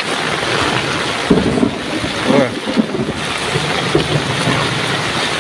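Heavy rain pouring down as a steady, dense hiss, with wind noise on the microphone.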